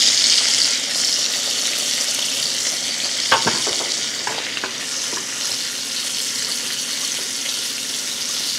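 Sea scallops searing in hot olive oil in a nonstick pan, sizzling steadily, a little louder in the first second or so. A few sharp knocks from a wooden spoon stirring risotto in a stainless steel pot come a few seconds in.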